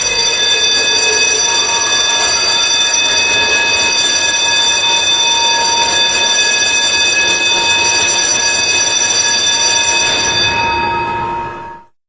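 Electric school bell ringing steadily, a rapid metallic rattle with several ringing tones, stopping and dying away just before the end.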